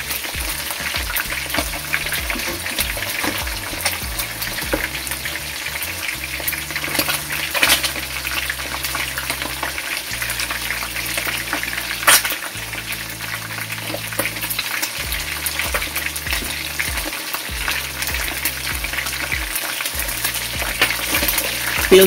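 Whole parrot fish and snapper shallow-frying in hot oil in a pan: a steady sizzle full of small crackles and spits while the skin side is still fixed to the pan. There is a sharp click about 12 seconds in, the metal slotted spatula knocking the pan as the fish are tested to see whether they move freely.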